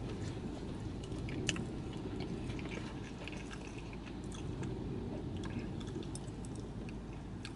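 Close-up mouth sounds of a man chewing a bite of McDonald's burger, with small wet clicks and one sharper click about a second and a half in, over a low steady hum.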